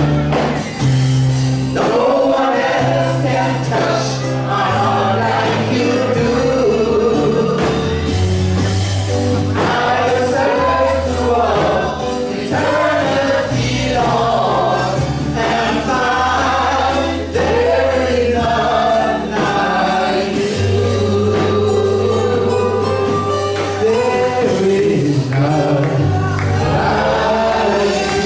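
A men's gospel praise team singing a slow worship song together, with band accompaniment under the voices and a bass line holding long low notes.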